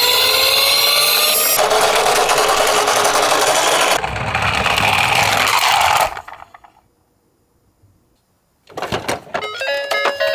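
Die-cast miniature toy cars rattling and clattering as they roll, with a siren tone rising in pitch over the first second and a half. The rattle cuts off about six seconds in, and after a couple of seconds of silence a few clicks and a tinkling music jingle start near the end.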